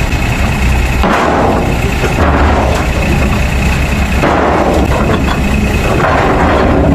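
Crawler excavator's diesel engine working hard with a steady high hydraulic whine, while its bucket forces a large steel casing pipe onto a steel dump-truck bed, steel grinding and banging against steel in noisy stretches.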